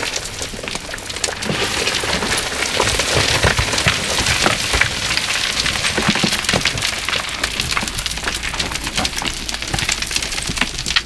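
Loose rock and gravel crunching and trickling under boots and hands as climbers scramble up a rubble slope: a dense, continuous patter of small clicks and scrapes.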